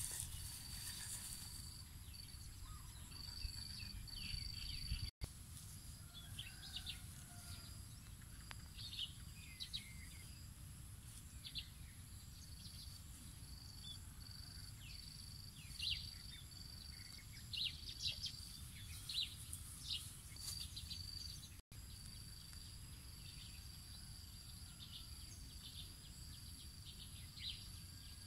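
Rural field ambience: a steady high insect whine with short gaps, and many short falling bird chirps, busiest in the second half, over a low rumble. The sound cuts out briefly twice.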